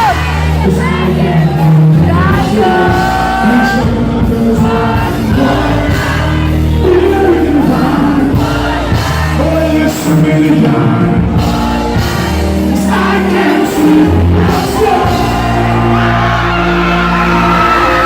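Live dancehall music playing loud, with a heavy bass line and a beat under a singer's voice, and shouts from the crowd.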